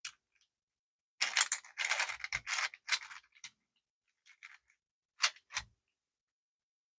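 A fully 3D-printed plastic Rubik's cube being turned by hand: a run of plastic clicks and rattles for about two seconds, a few faint clicks, then two sharp clicks.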